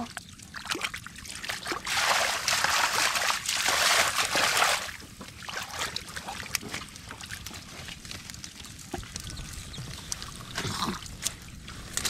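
Shallow muddy water sloshing and splashing as a pot full of live catfish is handled in it, with a louder stretch of steady splashing from about two to five seconds in and small drips and knocks throughout.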